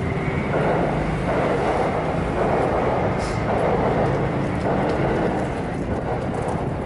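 Train running, a steady rumble and rail noise.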